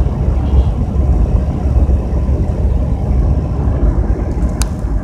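Steady low road rumble of a van cruising at highway speed, tyre and engine noise heard from inside the cab. One sharp click near the end.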